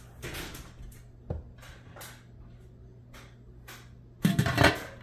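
Lid set back onto a stainless steel canning pot, a short clatter of metal near the end; a single light knock about a second in.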